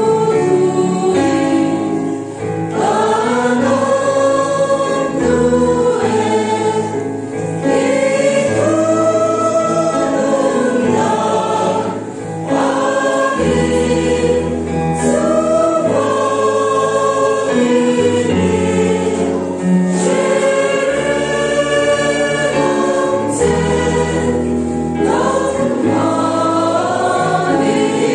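A church choir singing a hymn in parts, over instrumental accompaniment with long held bass notes.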